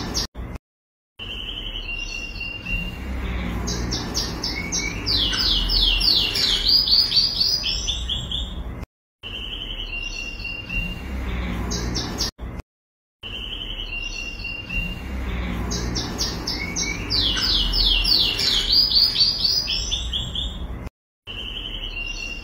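Goldfinch nestlings begging: high, rapid chirps in quick series, loudest in a run of short falling chirps, over a low handling rumble. The same stretch of chirping plays twice, broken by short silent cuts.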